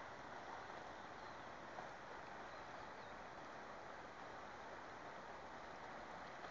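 Faint, steady rushing of a river in flood, its muddy water overflowing the banks.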